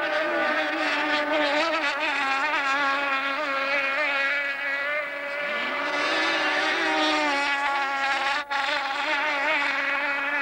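Racing powerboat engines running flat out, a high buzzing whine whose pitch wavers up and down. About five seconds in, another engine climbs in pitch and joins it. The sound cuts out for an instant a little past eight seconds.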